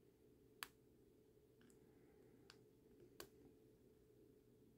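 Faint, sharp metallic clicks from a hook pick working the pin tumblers of a six-pin lockout padlock during single pin picking: two clearer clicks about half a second and three seconds in, with a couple of fainter ones between.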